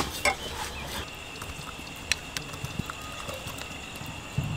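A cleaver chopping on a wooden block: a sharp knock at the start and a second one shortly after. Then scattered light knife clicks over a steady high-pitched tone, with a dull thump near the end.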